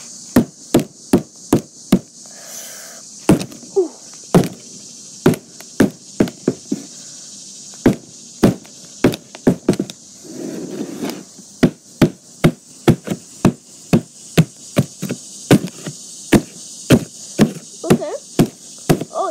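Claw hammer repeatedly striking a box: sharp knocks about two a second, with a short break about ten seconds in.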